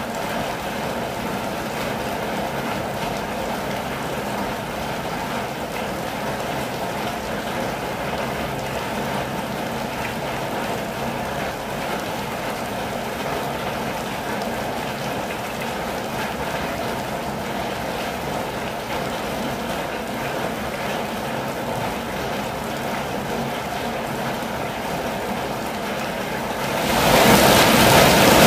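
Steady rain falling on a campervan, pattering on its roof and windows. Near the end it turns suddenly louder and more hissing.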